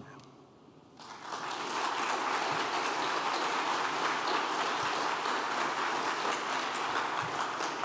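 Audience applauding, the clapping starting about a second in and holding steady.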